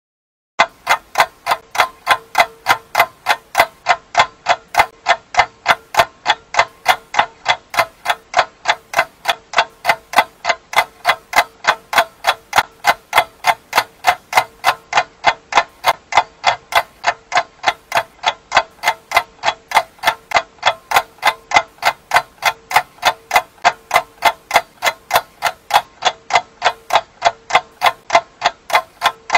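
Clock ticking steadily, a little over two ticks a second. It starts about half a second in.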